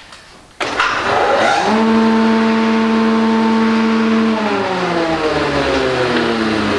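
Woodworking planer's 2 hp electric motor and cutter block switched on with a click, spinning up to a steady hum, then switched off about four seconds in and winding down with a falling pitch.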